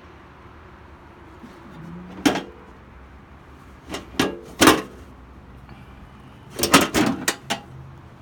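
Sharp knocks and clatters of hard objects in three groups: one hit about two seconds in, three more around four seconds, and a quick run of hits near seven seconds, some ringing briefly.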